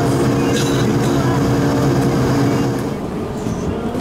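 Steady droning hum of an Airbus A220-100 heard from inside its cabin, with several fixed low tones over a noise bed. It stops abruptly about three seconds in and gives way to quieter cabin sound.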